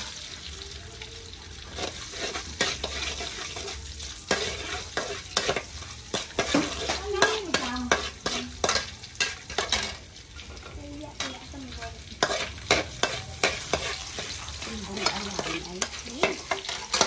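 Metal spatula scraping and clinking against a metal wok as chopped garlic sizzles in hot oil. The strokes are irregular and come more often after the first few seconds.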